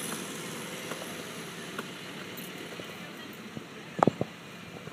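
A distant tractor engine running steadily, with one sharp knock about four seconds in.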